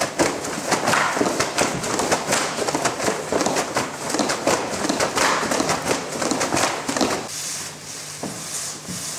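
A dancer's shoes stamping and scuffing on a hard floor in quick, irregular steps, which stop about seven seconds in and leave a low steady hum.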